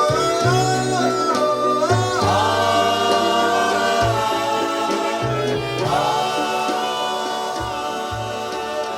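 Doo-wop vocal group singing close harmony on long held notes over a slow ballad backing with a moving bass line, getting gradually quieter as the song closes.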